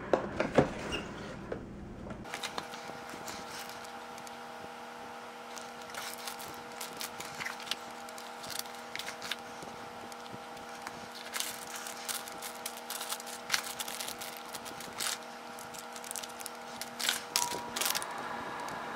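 A motherboard box being opened and its packaging handled: scattered clicks, scrapes and rustles of cardboard and plastic, over a steady hum that sets in about two seconds in.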